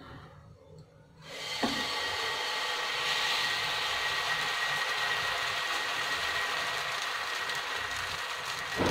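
Semolina batter sizzling on a hot, oiled non-stick tawa as it is poured and spread with a ladle. The sizzle starts suddenly about a second in and then holds steady, with a light tap of the ladle on the pan just after it starts.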